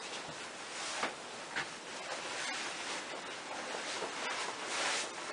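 Fingers rustling through a lock of human hair as it is braided by hand, an uneven hiss with a couple of small clicks about a second and a second and a half in, and a louder swell near the end.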